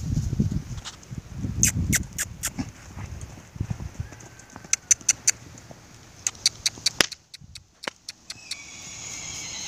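Hoofbeats of a pinto horse trotting loose on the dirt of a pen: low thuds, then a run of sharp clicks. A high, drawn-out sound comes in near the end.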